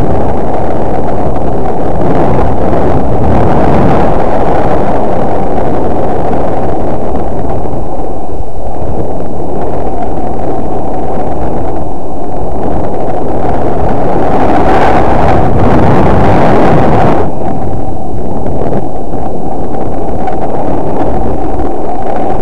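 Wind buffeting the microphone while snowboarding downhill: a loud, continuous, muffled rumble that swells a couple of times.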